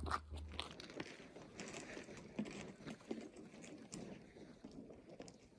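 Faint, irregular crunching and rustling with a few soft clicks, the sound of movement and handling on snow-covered ice.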